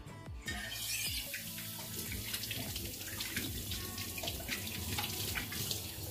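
Kitchen tap running into a stainless-steel sink, starting about half a second in, with the water splashing as something is rinsed under it.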